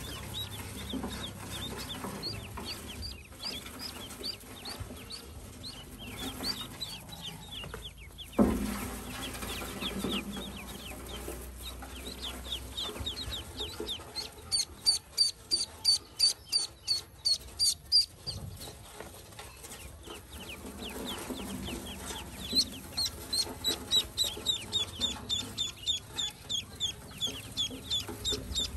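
A brood of Pekin ducklings peeping continuously: many high, thin calls that slide downward, with a fast run of loud peeps in the middle and again near the end. A single thump about eight seconds in.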